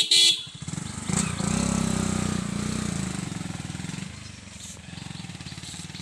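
A motorcycle's horn beep cuts off at the very start, then its engine runs past close by, swelling about a second in and fading after about four seconds.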